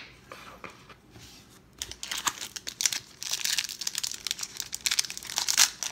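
A 1992 Pro Set football card pack's wrapper crinkling and tearing as it is pulled open by hand. The first two seconds are fainter, then a dense run of crackles follows.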